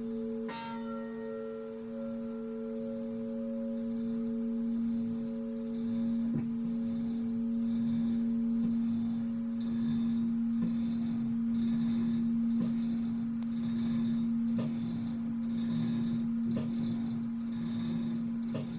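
A 400 kg bronze church bell cast in 1946, tuned to B. It is struck once near the start, and its deep hum rings on steadily. From about six seconds in it takes lighter clapper strikes roughly every two seconds as it swings, over a rhythmic high hiss.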